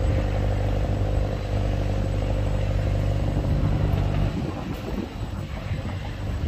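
Motor vehicle engine running with a steady low drone, which drops away about four seconds in, leaving a quieter, uneven rumble.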